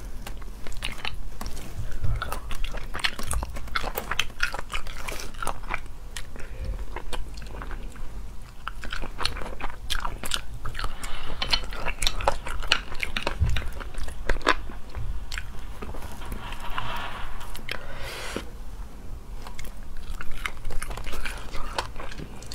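Close-miked eating of spicy sea snails: wet chewing and mouth sounds, with many sharp clicks.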